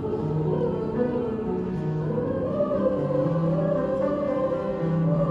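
Choir singing slow, sustained harmonies, the upper line moving gently over held low notes that change about once a second.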